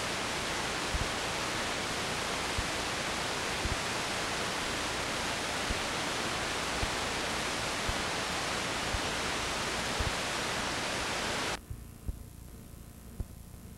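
Loud, even static hiss of a blank video signal (snow), with faint low thumps now and then. About 11.5 seconds in it cuts off suddenly, leaving a much quieter hiss with a low hum and a few clicks.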